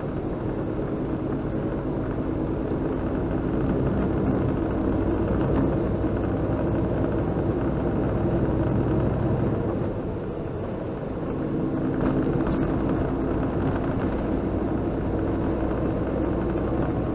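Semi truck's diesel engine running under way, with road noise, heard from inside the cab as a steady rumble. The engine note and level drop briefly about ten seconds in, then pick back up about two seconds later.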